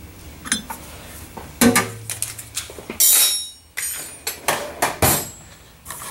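Scattered clicks and knocks of hand work as a plastic inline air filter is threaded onto a plasma cutter's air regulator, with a short loud burst of noise about three seconds in.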